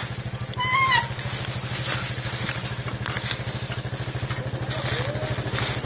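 ATV engine idling with an even, steady pulse. A brief high-pitched squeal about a second in, and scattered crackling of dry leaves and branches as the quad is pushed and handled.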